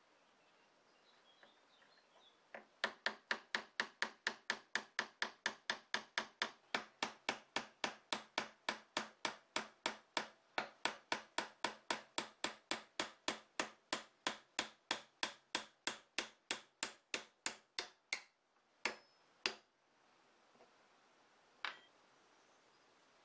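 Fast, even hammer blows on a steel tool held against a wooden shovel handle, about three a second, driving an old rusty nail out of the wood. The run stops, and two single blows and a light click follow near the end.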